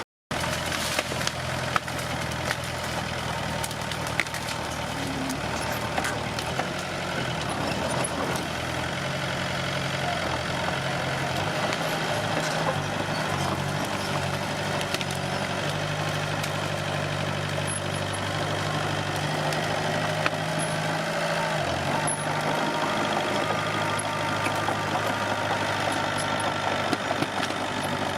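Komatsu D21P bulldozer's diesel engine running steadily, its pitch shifting a little in the middle as it works, with scattered sharp clicks and cracks over it.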